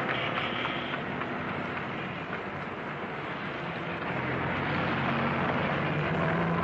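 Street traffic: motor vehicle engines running over a steady hiss of road noise, with a low engine hum growing louder about halfway through.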